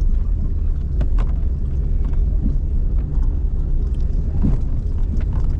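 Car driving uphill on a dirt track: a steady low rumble of engine and road noise with a few short knocks and rattles.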